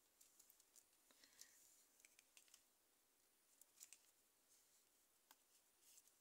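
Near silence, with faint scattered clicks and light rustles of fingers pressing a small piece of modelling clay onto a clay figurine and handling it on a board.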